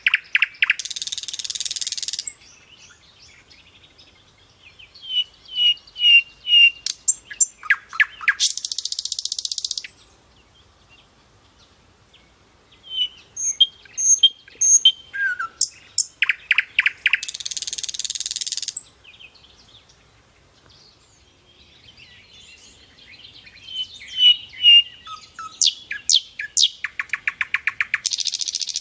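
Nightingale singing in phrases of several seconds with pauses between them. Each phrase runs from clear whistled and rapidly repeated notes into a dry, buzzing rattle.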